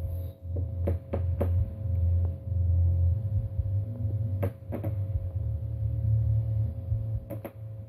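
Electric sparking: a steady low electrical hum broken by sharp snaps, a quick cluster about a second in, a pair around four and a half seconds in, and another pair near the end.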